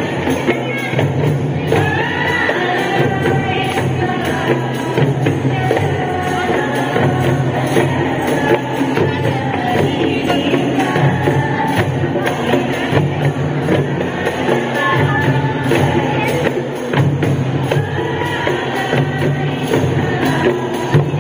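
A group of women singing together while beating hand-held frame drums (rebana) in rhythm.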